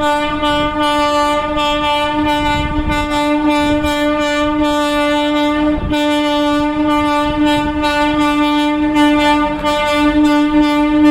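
Indian Railways WCAM-3 electric locomotive's horn sounding in one long, steady blast, broken only briefly about six seconds in and again near ten seconds.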